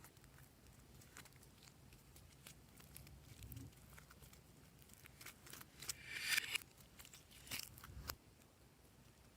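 Slime being handled and mixed: scattered small clicks and crackles, with a louder crinkling rustle about six seconds in and two shorter ones near the end.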